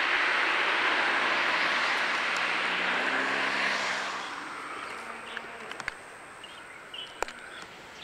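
Loud rushing noise of a passing vehicle, fading away about four to five seconds in; a few faint clicks follow.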